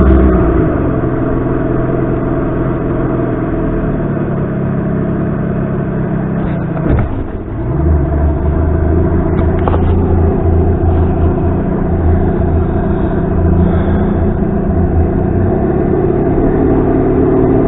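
Outboard motor running with the boat under way; its pitch drops in the first second as it is throttled back, dips briefly about seven seconds in, then runs on steadily.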